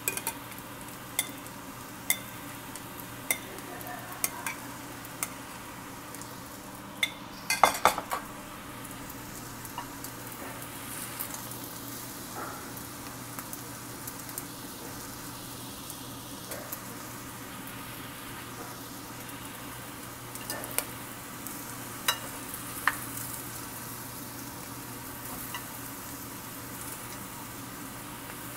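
Fried rice sizzling in a stainless steel pan as it is stirred, with a metal spoon knocking and scraping against the pan every second or so. The loudest clatter is a cluster of knocks about 7 to 8 seconds in, and a few more come near 21 to 23 seconds.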